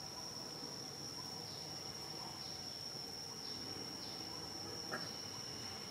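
Steady high-pitched insect drone, a single unbroken tone, with a few faint short falling chirps and a brief sharp click about five seconds in.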